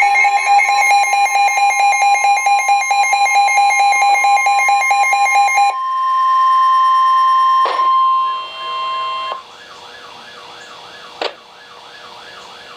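Emergency Alert System flash flood warning tones over a weather radio broadcast. Rapidly pulsing electronic beeping runs for about six seconds, followed by a steady single high tone, the weather radio warning alarm tone, for about four seconds. The tone cuts off to a faint hiss with a quick wavering warble and a couple of sharp clicks.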